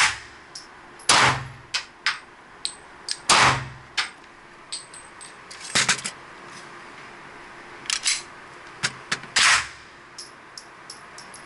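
Pistol shots in an indoor shooting range, the first from a Glock 22C .40-calibre handgun: a loud shot at the start, two more about one and three seconds in, and another near the end, each ringing off the range walls. Lighter cracks and metallic clicks fall in between.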